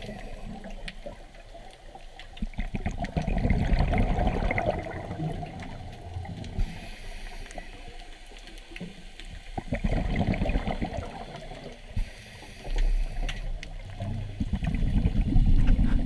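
Scuba diver's exhaled bubbles gurgling and rushing past an underwater camera housing, in three surges several seconds apart with quieter hiss between.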